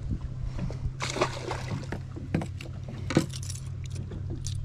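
Light clicks and clatter of fishing tackle, a rod and a large jerk bait, being handled in a boat, a few sharp clicks standing out over a steady low hum.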